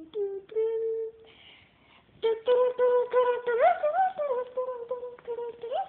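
A voice humming a tune in held notes, sliding up in pitch and back down a couple of times, with a short pause about a second in.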